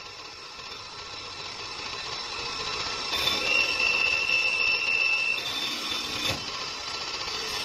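CNC woodworking lathe running and turning a wooden furniture leg, the cutting tool scraping across the spinning wood with a steady hiss that grows louder. A high whine is held for a couple of seconds from about the middle, and a single knock comes about six seconds in.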